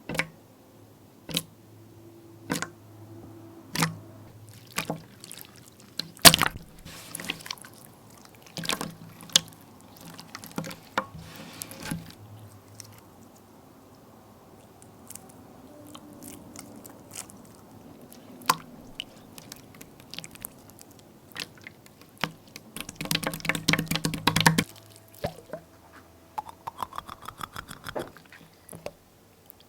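Wet slime mixed with ice being squeezed and worked by hand: scattered sticky clicks and pops, with a dense burst of crackling about two-thirds of the way through. Near the end comes a short pour of liquid whose pitch rises.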